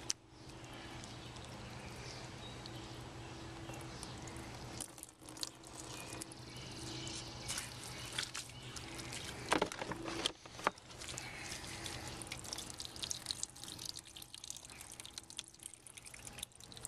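Water dripping and trickling as a wet clump of freshly scraped algae is handled, with small irregular splashes and two sharper knocks about ten seconds in, over a steady low hum.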